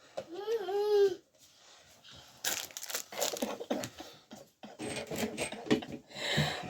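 A short hummed vocal sound, then a quick run of clicks, rattles and scraping from parts being handled and fitted.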